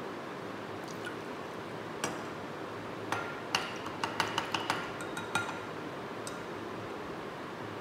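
Glassware clinking: a quick, irregular series of light, ringing clinks as something is stirred and tapped against a glass beaker while extraction fluid is mixed. The clinks come in a tight cluster around the middle, over a steady hiss.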